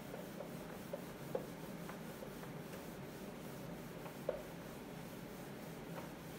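Faint sounds of writing: a pen rubbing across a writing surface, with a few light ticks.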